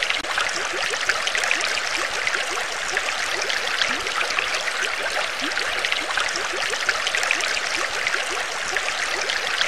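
Saltwater aquarium's water circulation: steady trickling and bubbling, with many short rising bubble blips throughout.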